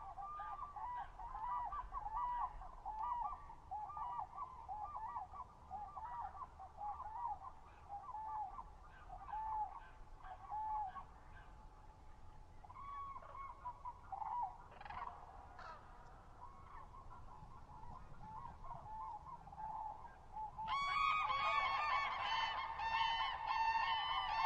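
A flock of common cranes calling, many overlapping trumpeting calls that each rise and fall. About three seconds before the end the chorus grows louder and denser.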